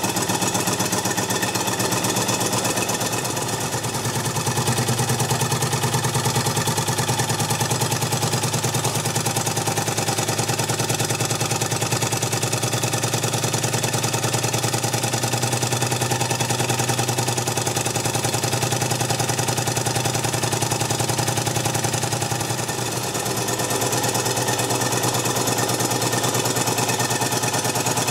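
Markie 1:10 scale live-steam plough engine model running steadily, its cylinder and motion giving a fast, even mechanical beat with clatter. It eases briefly twice, about three seconds in and again near the end.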